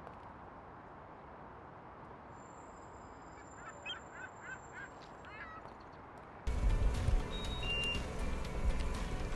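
Quiet room tone with a quick series of several short squeaks midway, then background music cuts in abruptly about six and a half seconds in and carries on.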